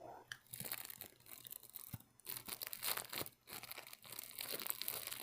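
Crinkling and crackling in short, irregular bursts close to the microphone, from eating a sugar-shelled candied strawberry and handling its wrapping.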